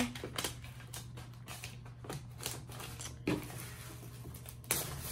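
A sheet of matte contact paper being handled, crinkling and rustling in a run of quick, sharp clicks, with a louder crackle near the end.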